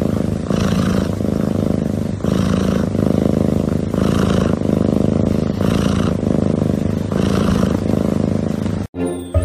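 A cat purring close to the microphone: a steady, rough rumble that swells and eases about every second and a half with its breathing. It cuts off near the end, where music with bells begins.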